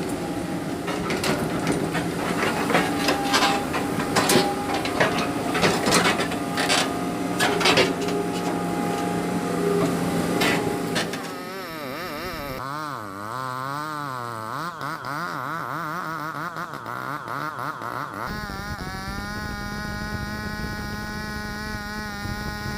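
Excavator engine running under load with repeated sharp knocks and clanks, as logs are worked, for about the first half. Then the knocks stop and a tone warbles rapidly up and down for several seconds. It gives way to a steady buzzing tone with many overtones.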